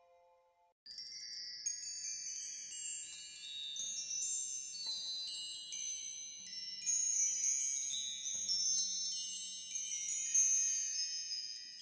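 High-pitched chimes tinkling: many overlapping bell-like tones struck at irregular moments, starting about a second in and ringing on.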